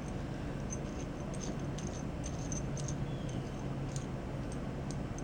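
Light, irregular ticks and clicks of small metal hand tools and hardware being handled and worked at by a capuchin monkey, over a steady low background hum.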